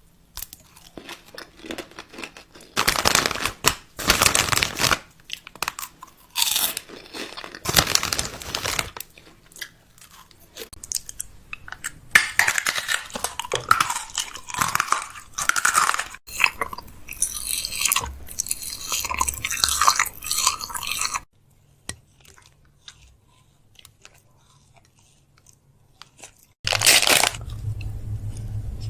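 Crunching food sounds in irregular bursts, with a fast run of crisp crunches in the middle. Near the end there is a short quiet stretch, then one loud burst followed by a steady low hum.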